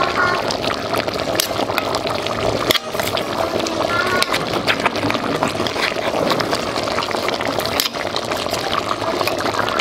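Steady hissing and bubbling of water, with many sharp crackles.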